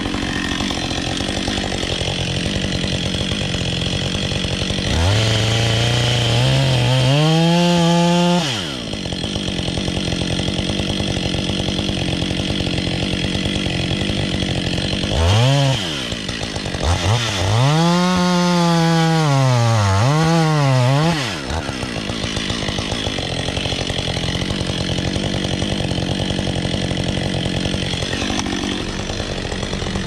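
Gas chainsaw idling, then revved up several times: once about five seconds in, a short blip partway through, and a longer high-rev run near the middle where the pitch sags and recovers as it cuts into the base of a red pine. It then falls back to idle.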